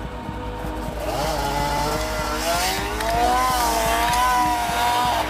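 Arctic Cat M6 snowmobile's two-stroke engine revving up about a second in and holding high revs, its pitch wavering up and down as the buried sled tries to climb out of its hole in deep snow. Background music with a steady beat runs underneath.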